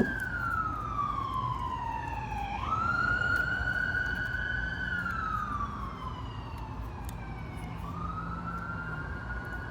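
Fire truck siren wailing: one slow wail whose pitch falls steadily, jumps back up about two and a half seconds in, falls again, and starts rising once more near the end.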